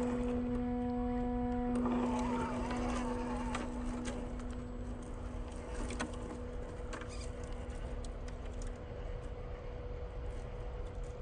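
Steady hum of the MN82 RC truck's small electric motor, growing fainter as the truck moves away, with scattered light crackles.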